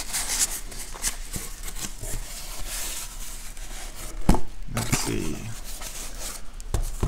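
Small cardboard card box being opened and handled: the cardboard rubs and scrapes, with one sharp knock about four seconds in.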